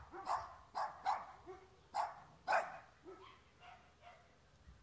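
Small dogs barking in a run of short, sharp barks, about two a second, growing fainter near the end.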